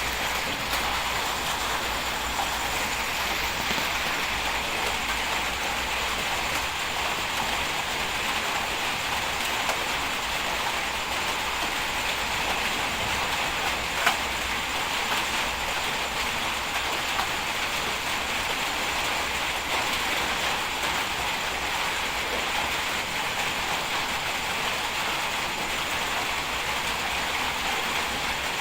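Heavy bulldozer running and working, a steady dense clatter of engine and tracks, with one sharp knock about halfway through.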